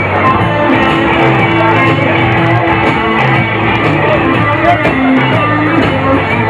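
Live rock band playing loud amplified music, electric guitar over a steady bass line.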